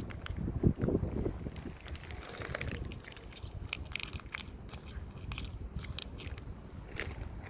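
Cats crunching and chewing food: a run of short, sharp crunches. Wind rumbles on the microphone, strongest in the first second or so.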